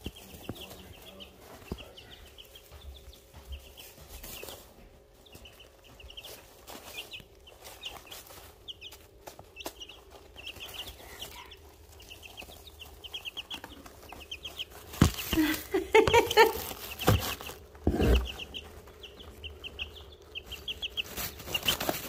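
Young chicks, 17 to 18 days old, peeping in quick runs of short high notes. From about 15 to 18 seconds in, louder scratching and knocks come close to the microphone as chicks move through the wood shavings right by it.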